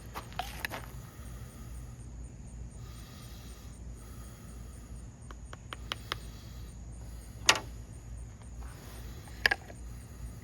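Insects chirping steadily in a fast, even pulse, with a few sharp clicks and knocks scattered through. The two loudest knocks come about seven and a half and nine and a half seconds in.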